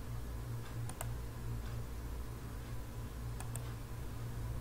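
A few sharp computer-mouse clicks, one about a second in and two in quick succession near the end, over a steady low electrical hum.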